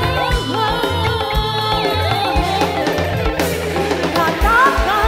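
Live band music amplified through a PA: a woman singing over electric guitar, bass guitar and a drum kit with a steady beat.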